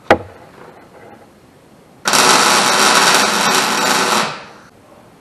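A sharp click, then a wire-feed welder running a short weld on a steel fender bracket: about two seconds of steady arc noise that stops near the end and tails off.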